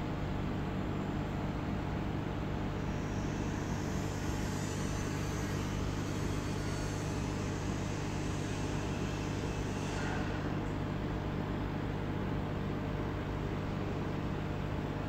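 Aquarium pump running with a steady electric hum of low buzzing tones over a constant hiss of moving air and water.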